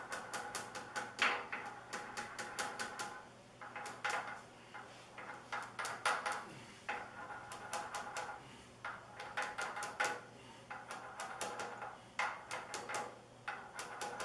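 Light hammer taps on the tine-shaft oil seal of a Troy-Bilt Super Bronco tiller, tapping here and there around its rim to drive it into the housing square. The taps come in quick clusters with short pauses between, each with a brief metallic ring.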